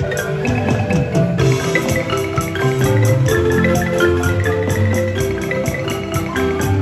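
Ensemble of Zimbabwe-style marimbas played with mallets, from high soprano bars down to bass marimba, in a busy, steady interlocking rhythm with a strong low bass line.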